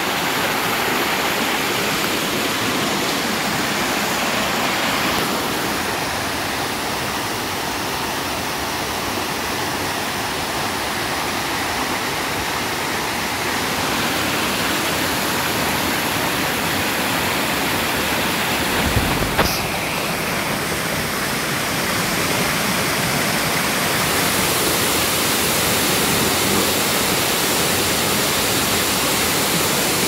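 Waterfall crashing into its plunge pool: a steady, loud rush of falling water whose level shifts slightly a few times. A brief thump sounds about two-thirds of the way through.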